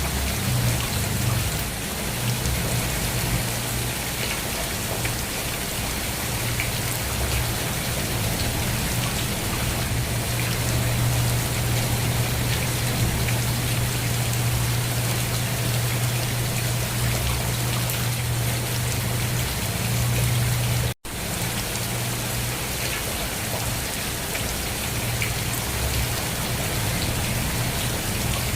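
Steady rain falling, with many fine drop patters over a low rumble. The sound cuts out completely for a split second about two-thirds of the way through.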